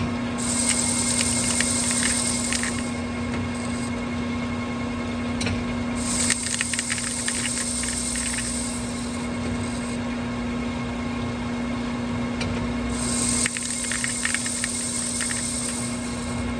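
Metal lathe running with a steady hum while a carbide insert turns a wheel hub. The cutting hiss comes in three passes of a few seconds each, with light ticking from the curling chips.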